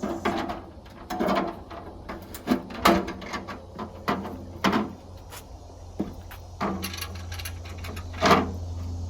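Hurricane shutter panel being slid into a window's header and footer track and fitted over the track bolts: irregular clattering knocks and rattles, some ringing briefly, with the loudest knocks near the start, around three seconds in and near the end.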